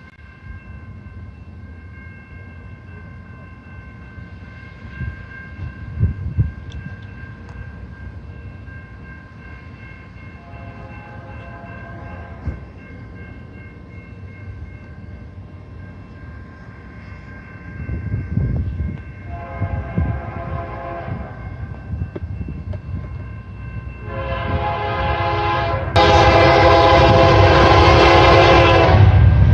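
A CN freight locomotive's air horn sounding while the train approaches. It gives several separate blasts, faint at first and growing louder, with the last blast near the end much louder. A low rumble from the locomotive builds under the horn.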